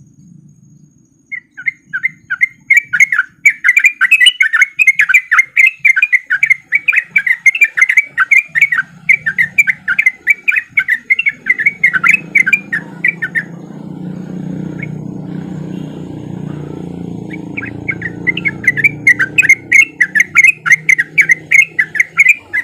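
Yellow-vented bulbul (trucuk) giving a fast chattering run of quick repeated notes, its 'ropel' song. It breaks off about halfway and starts again near the end. A low rumble runs underneath through the second half.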